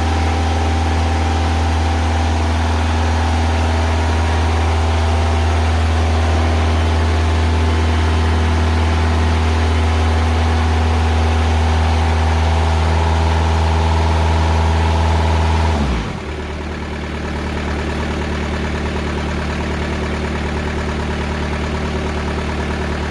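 Diesel engine of a TimberKing 2000 sawmill running steadily while its hydraulics turn the log. About sixteen seconds in, the note dips in pitch and the engine settles to a slightly quieter, steady run.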